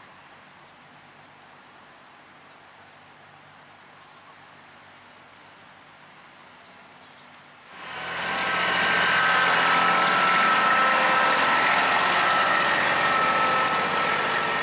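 Faint steady background at first; then, about eight seconds in, a compact tractor's engine comes in loud and runs steadily, with a high whine riding on it.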